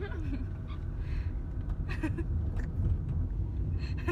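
Inside a moving car: a steady low rumble of engine and road noise, with a few brief faint murmurs from the passengers.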